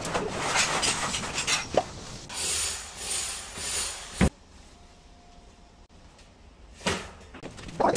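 Gritty scraping and clattering of demolition rubble being shovelled, with a sharp knock about four seconds in and another near the end.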